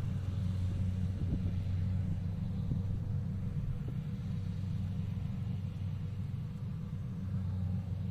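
Kubota DC70 combine harvester's diesel engine running steadily at a distance while it harvests rice: a constant low drone with a faint steady whine above it.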